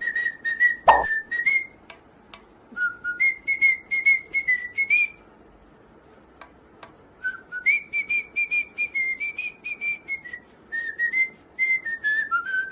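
A tune whistled in short, high notes that step up and down, in two phrases with a pause of about two seconds between them, over faint clicking.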